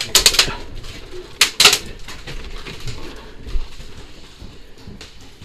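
Two quick rattles of sharp clicks and cracks, each lasting under half a second, about a second and a half apart.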